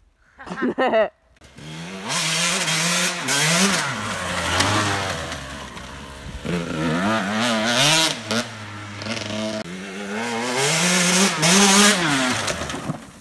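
KTM 125 two-stroke dirt bike with an FMF exhaust, loud and revving hard. There is a short blip about half a second in, then the engine note repeatedly climbs and drops as the throttle is worked, fading away near the end.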